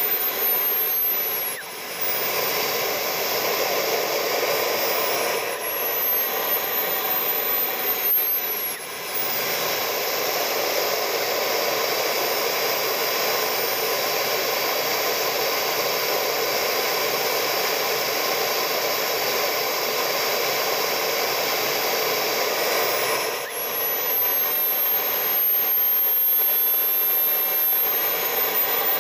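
Model jet turbine engine of an RC F9F-6 Cougar running close to the microphone: a steady rush with a high turbine whine that glides up and down a few times, then climbs and holds a higher pitch about three-quarters of the way through.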